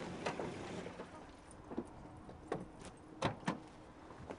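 Car door being unlatched and opened: a handful of sharp clicks and knocks from the handle and latch, spaced irregularly through the second half.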